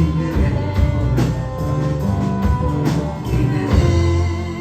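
Live folk-rock band playing loudly, with a steady drum beat under guitar and held melody notes.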